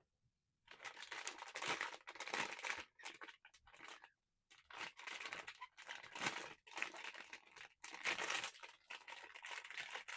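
Plastic blind-box packaging crinkling and tearing as a figure is unwrapped, in two stretches of rustling with a short pause between them.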